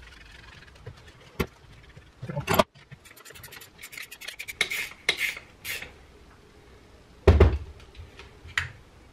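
Metal parts and a spanner being handled as the top nut of an air-bag coilover is tightened: rubbing and scraping, scattered clicks and knocks, and a quick run of small clicks about three seconds in. Near the end a single heavy thump, the loudest sound, as the assembly is set down on the wooden workbench.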